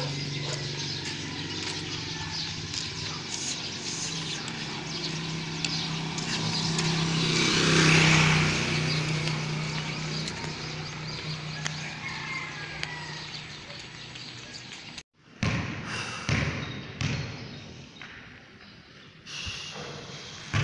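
Street noise with a motor vehicle passing, swelling to its loudest about eight seconds in and then fading. After a sudden break about fifteen seconds in, a few sharp thumps echo in a large covered hall.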